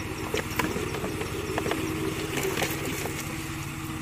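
A small engine idling steadily, with scattered light clicks and slaps from live fish being handled in a plastic bucket.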